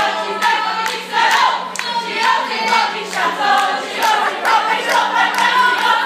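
A crowd of women singing a chant together, with clapping in time.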